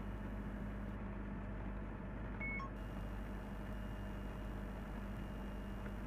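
Cessna 172's engine running steadily at taxi idle while the plane rolls across the apron. A short beep sounds about two and a half seconds in.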